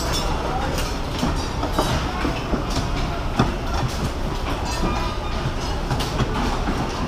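Cigar-factory floor noise: a steady low rumble of machinery with scattered clicks and knocks.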